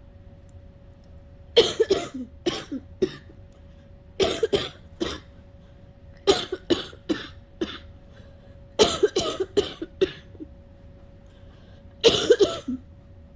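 A person coughing in five bouts of several quick coughs each, a few seconds apart. The person is ill and trying to cough up mucus without bringing anything up: an unproductive cough.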